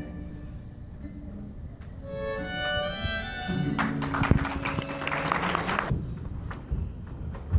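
Violin music playing a slow melody that fades out about three and a half seconds in, followed by an audience applauding for about two seconds.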